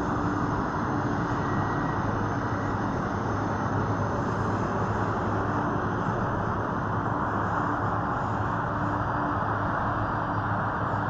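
Boeing 747 Dreamlifter's turbofan engines running at low power as the aircraft taxis slowly: a steady rushing jet noise with a constant low hum under it.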